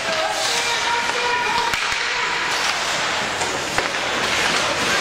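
Voices shouting over steady crowd noise at a game, with two sharp knocks about two seconds apart.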